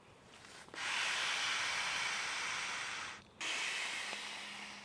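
Mouth-inflating an inflatable camping pillow: two long, steady breaths hissing into the valve, with a short pause between them as the pillow fills.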